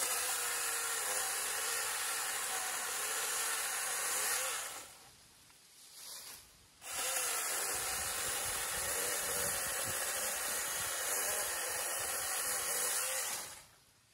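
NaTiddy 21-volt brushless 6-inch cordless mini chainsaw running in two long bursts while cutting through leafy limbs. Its motor note rises as it spins up and falls as it winds down each time, with a pause of about two seconds between the bursts.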